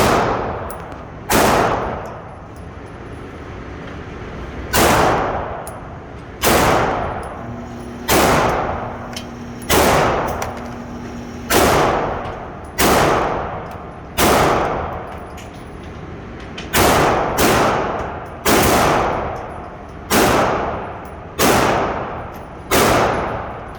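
Glock pistol fired in slow, single shots: about sixteen shots, mostly one to two seconds apart and once in a quick pair, each trailing off in echo.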